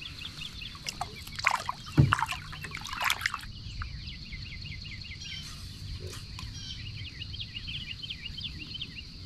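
Lakeside bird calls and rapid repeated chirping over a steady high insect hum, with a louder flurry of calls in the first few seconds and a single thump about two seconds in.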